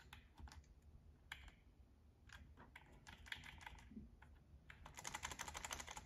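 Faint typing on a computer keyboard: scattered single keystrokes, then a quick run of keys near the end.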